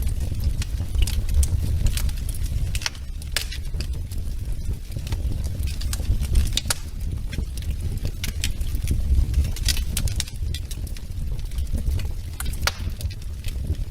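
Wood fire burning in a fireplace: irregular sharp crackles and snaps over a steady low rumble.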